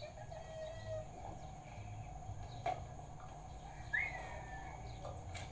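Faint peeping of young bird chicks in a wire cage, with a sharper single peep that jumps up and slides down about four seconds in, as a chick is lifted out by hand. A couple of light clicks are heard in between.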